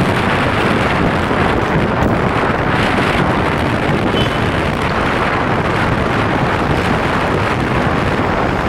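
Wind buffeting the microphone over the steady running noise of a Hong Kong double-decker tram travelling along its rails.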